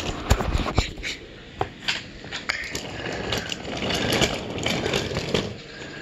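Wooden Brio toy trains pushed by hand along wooden track: several sharp knocks and clacks in the first couple of seconds, then a steadier rolling rattle of wooden wheels that grows louder about four seconds in.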